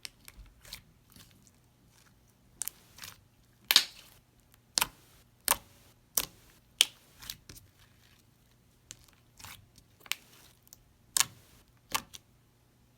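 Thick, stretchy slime being handled, giving sharp, irregular popping clicks, about one or two a second, the loudest a little under 4 s in.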